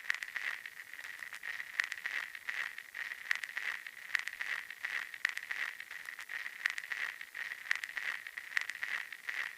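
A continuous high chirring sound effect with many quick, irregular sharp clicks.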